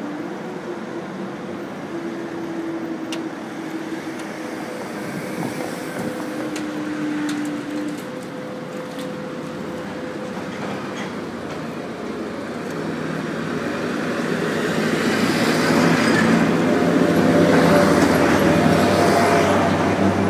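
Diesel train running with a steady engine tone that fades out about eight seconds in. Road traffic then moves off, with a vehicle engine growing louder and the loudest near the end.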